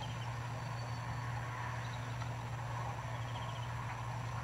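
Steady low hum over faint outdoor background noise, with a couple of faint high chirps; no distinct pecking or other sudden sound.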